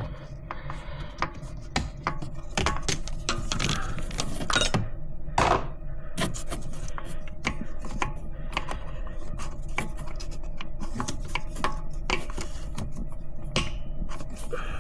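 Irregular clicks and knocks of hand work fitting the heater hoses and their clamps, with a couple of short squeaks about five seconds in.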